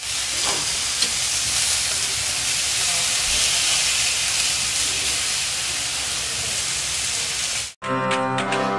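Beef steaks sizzling on a ridged grill pan, a steady high hiss. It cuts off abruptly near the end and music with bell-like tones begins.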